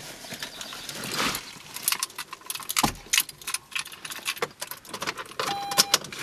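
Car keys jangling and clicking as the ignition key is put in and turned to the on position, with a brief beep near the end.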